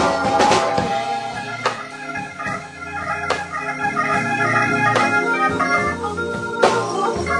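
Hammond organ playing a slow blues with held, chordal notes. A drum kit accompanies it, with a sharp hit about every second and a half.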